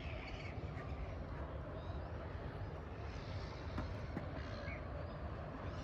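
Steady low outdoor rumble with a few faint, short bird chirps over it.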